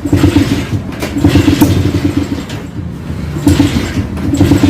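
Old Jawa motorcycle's two-stroke engine running, its sound swelling and dropping back every second or so.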